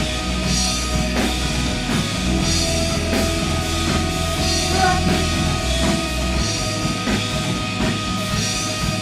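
Worship band playing an instrumental passage of a rock-style praise song: drum kit, bass and sustained chords.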